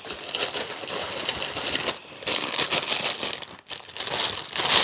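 Squishy toy's packaging crinkling and rustling in irregular handfuls as the squishy is put back inside it, with a short pause a little past halfway.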